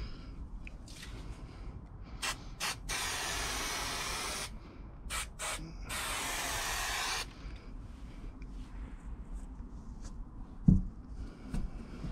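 Aerosol spray adhesive hissing onto a plywood panel: two quick puffs, then a long spray of about a second and a half, then two more quick puffs and a second long spray of about a second. A single thump near the end.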